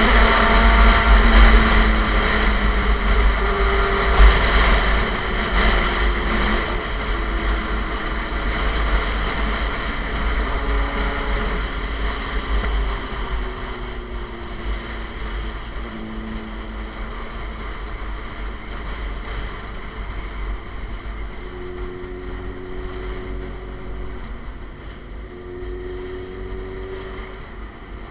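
Suzuki GSX-R sport bike with an SC Project exhaust on the move, its engine note sliding down and getting quieter over the first several seconds, then running at steadier lower revs. Wind noise on the microphone throughout.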